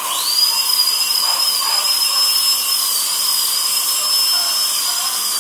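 Dental drill whining at a high, steady pitch over a hiss, spinning up in the first moment and then holding its speed with slight dips.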